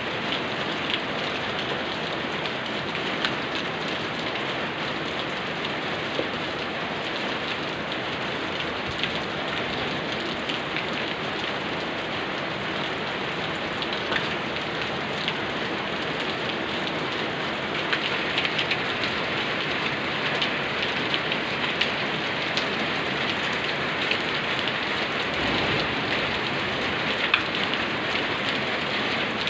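Steady rain falling, an even hiss with many small drop ticks, growing slightly heavier and busier past the middle.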